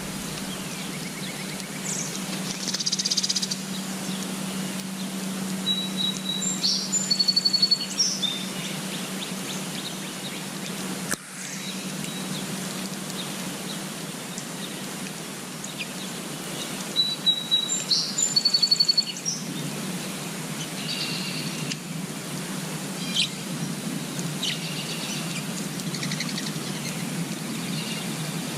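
Small songbirds chirping and singing in short, high trilled phrases over a steady low hum and hiss. The loudest burst of song comes about seven seconds in, and a nearly identical one returns about ten seconds later.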